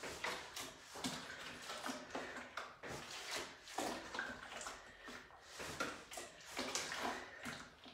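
Water sloshing inside a large plastic container being used as a hand weight, surging about once a second as it is swung through repeated side lunges.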